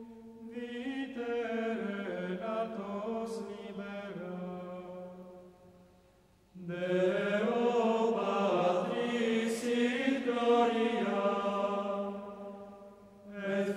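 Slow religious chant sung as a single melodic line, with long held notes that move gently in pitch. One phrase fades out about six seconds in, and after a brief pause a second phrase starts.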